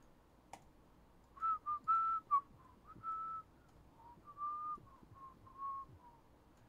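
A person whistling a short tune to himself, a string of brief notes. There is a single click about half a second in.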